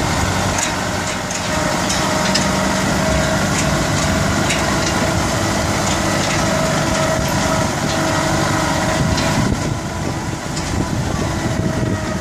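Kubota farm tractor's diesel engine running steadily as the tractor drives along, with scattered light clicks and rattles.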